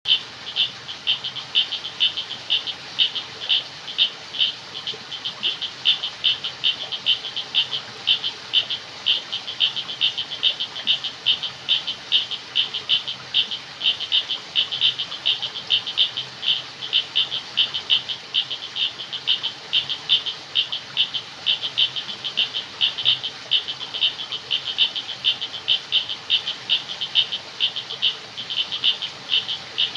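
Frogs calling at night: a steady, fast train of short, high-pitched calls, several a second, over a faint background hiss.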